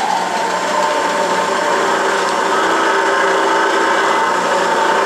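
Delta variable speed drill press running steadily while its speed-change crank is turned, shifting the variable-speed drive to a new spindle speed. A hum with several held tones, some of which shift about halfway through.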